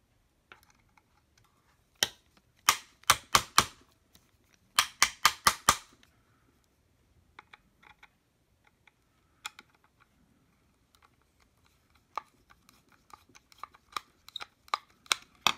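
Screwdriver backing small screws out of the plastic handle of a Hyper Tough battery soldering iron. It makes sharp clicks in two quick bursts about two and five seconds in, then scattered ticks and another run of clicks near the end.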